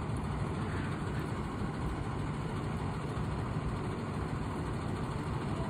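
School bus diesel engine idling steadily with its engine cooling fan engaged, a constant low rumble.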